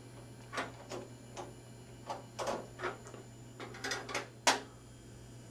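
Plastic clicks and knocks from a document scanner as its feed roller is fitted back in and its hinged covers are shut: a string of separate clicks, ending in the loudest clunk about four and a half seconds in as the top section closes.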